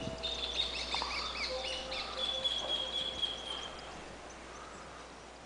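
Birds chirping and calling over a few long, steady held tones; the sound fades away near the end.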